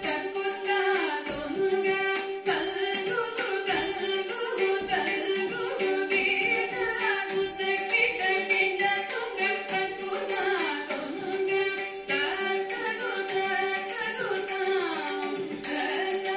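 Recorded Carnatic-style devotional song to Ganesha: a female voice singing over a steady drone note with percussion keeping the beat.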